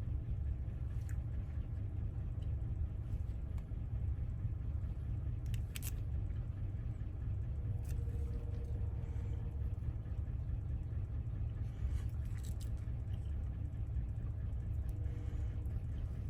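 Steady low background rumble, with a few faint light clicks from small metal lock wafers being handled.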